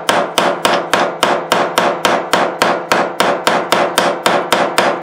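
A hammer tapping a pin punch steadily and quickly, about five blows a second, to drive a bushing out of a Singer 201-2 potted sewing-machine motor's housing. Each blow rings briefly with a metallic tone.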